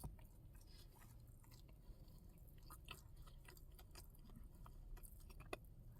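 Faint chewing of a bacon cheeseburger, with a few small, scattered mouth clicks.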